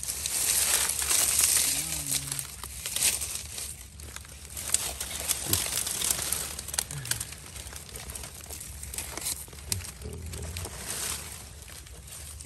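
Dry grass and stalks rustling and crackling, with scraping and crunching of earth, as a crab burrow is dug open by hand. Loudest in the first few seconds, quieter near the end.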